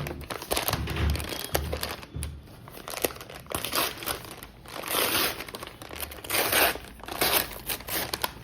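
Packaging crinkling and rustling as a small packet is opened by hand, with louder bursts of crinkling about five and six and a half seconds in. A few dull handling thumps come in the first couple of seconds.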